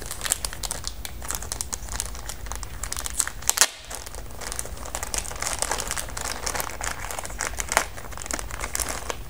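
Plastic packaging being handled, crinkling in many small, irregular crackles, with a brief break in the sound about three and a half seconds in.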